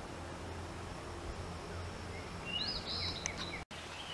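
Outdoor ambience of a songbird giving a short run of chirping calls a little over halfway through, over a low steady hum.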